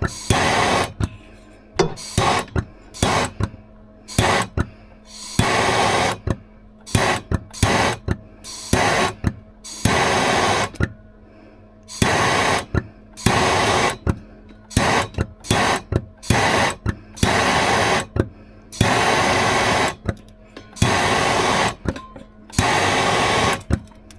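Repeated short hissing bursts at irregular spacing, some a fraction of a second and some about a second long, over a steady low hum, from tool work on a seized U-joint.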